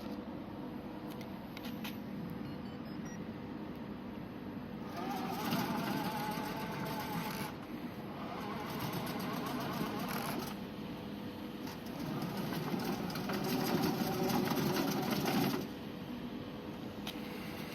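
SAAO SH-550B hybrid remote-control lawn mower running, growing louder in three stretches of a few seconds each, as under cutting load.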